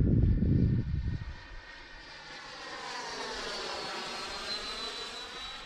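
A 90 mm electric ducted fan on an RC F-18 jet flying past. A loud low rush fills the first second or so, then the fan's whine, with many overtones, bends in pitch and swells towards the middle, topped by a high tone that slowly falls near the end.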